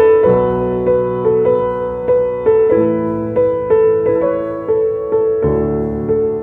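Piano music: single notes struck at an even, gentle pace, with low bass notes joining just after the start and again about five and a half seconds in.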